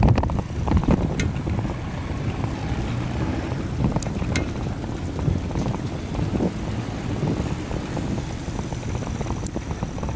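Wind buffeting the microphone of a camera riding on a moving bicycle: a steady low rumble over city traffic, with a few faint ticks.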